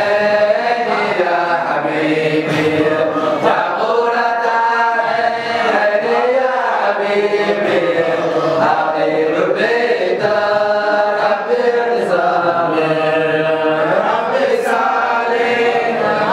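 A group of male voices chanting an Islamic dhikr together without instruments, a lead voice on a microphone with the others joining in.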